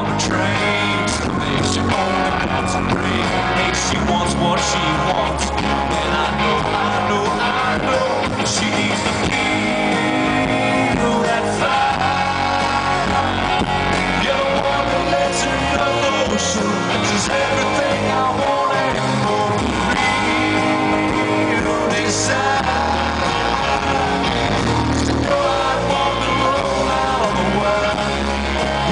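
Live country-rock band playing loud, with a male lead singer, electric guitars, bass and drums, heard from within the audience.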